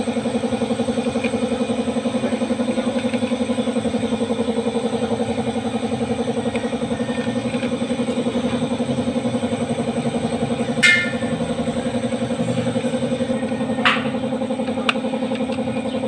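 A small engine, likely a motorcycle's, idling steadily with an even, fast pulse. Two sharp clicks sound about eleven and fourteen seconds in.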